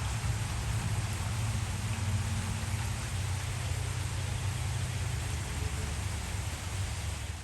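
Heavy rain coming down steadily, an even hiss of falling water over a steady low rumble.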